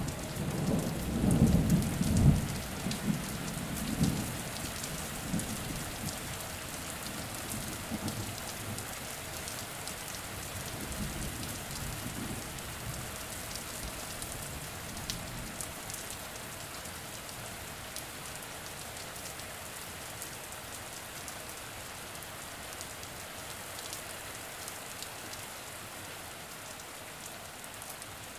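Steady rain falling, with a roll of thunder rumbling through the first few seconds and dying away; scattered drops tick now and then.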